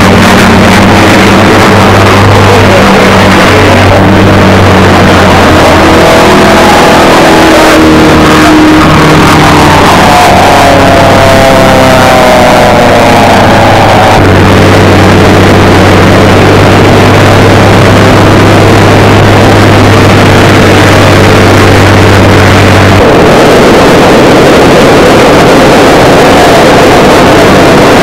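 Propeller warbirds' radial piston engines running and taxiing, with a steady low drone throughout. Tones slide up and down in pitch partway through, and the sound turns rougher about 23 seconds in.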